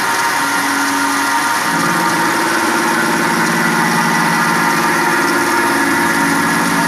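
Fanuc Tape Center Model D CNC milling machine cutting metal with an end mill: a steady, loud whine from the spindle and cut, with a lower hum that drops out for the first second and a half and briefly again near the end.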